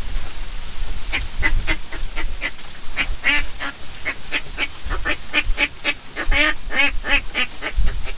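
A hunter's duck call blown close by in a long run of short, nasal quacks, about two to three a second and uneven in loudness, calling to a duck that has flown off.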